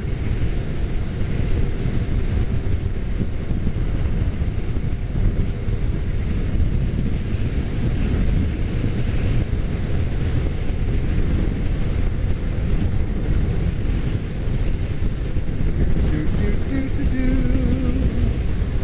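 Wind roar and engine noise of a Suzuki motorcycle riding at freeway speed, a steady heavy rumble with the wind buffeting the microphone. A short wavering tone rises over it near the end.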